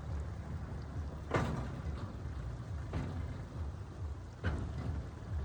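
Three sharp knocks about a second and a half apart, each with a short ring, over a steady low rumble.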